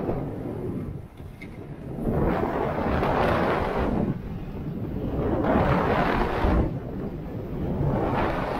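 Skis scraping and hissing over firm, tracked snow during a downhill run, swelling three times as the skier turns, over a steady rumble of wind on the microphone.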